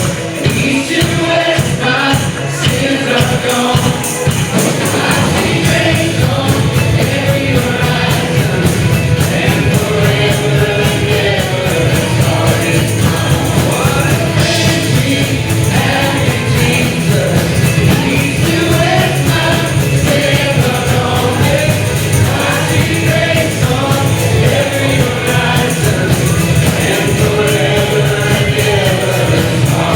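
Gospel worship music: a congregation or choir singing together over band accompaniment, with a tambourine.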